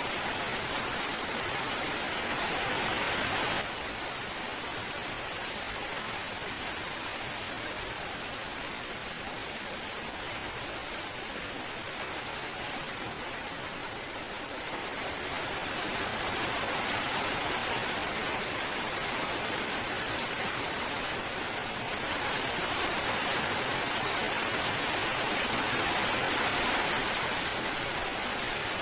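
Steady rain, an even hiss of falling water. The level drops suddenly about four seconds in, then swells back up in two stages later on.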